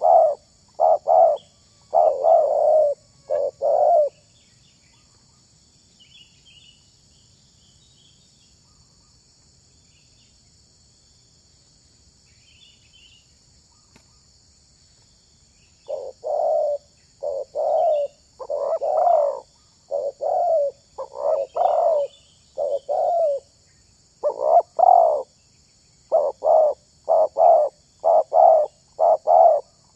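Spotted dove cooing in runs of short, quick coos. The cooing stops about four seconds in, leaving only faint chirps of small birds, and starts again about halfway through.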